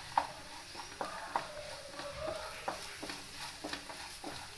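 Spatula stirring potato cubes in a frying pan: irregular scrapes and taps against the pan over a faint sizzle of frying.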